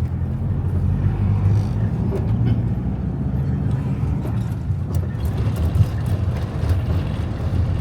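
Steady low engine and road rumble of a moving vehicle, heard from on board.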